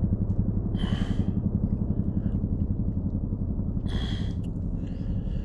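Wind buffeting the microphone: a steady, low, fluttering rumble. Two short hissy sounds come through it, about a second in and again about four seconds in.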